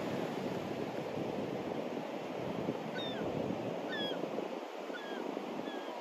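Ocean surf on a sandy beach: waves breaking and washing up in a steady rushing noise. About halfway through, a bird gives four short calls about a second apart.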